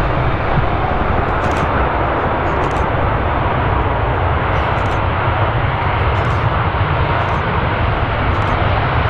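Airliner jet engines running, a steady loud roar, mixed with heavy wind buffeting the microphone in a storm.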